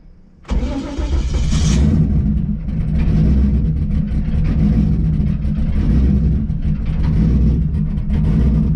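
Race car engine firing up from cold about half a second in, revving briefly, then settling into a steady idle.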